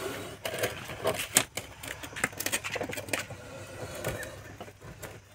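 Clear plastic bottle crackling and scraping against a concrete step as a cobra is guided into it: a run of irregular clicks and rustles.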